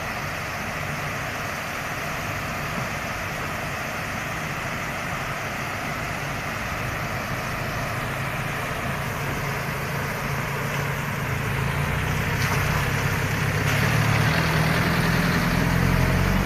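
Engines of pickup trucks and SUVs running as they drive slowly through floodwater crossing the road, over a steady rush of water. The engine rumble grows louder in the last few seconds as a vehicle comes closer.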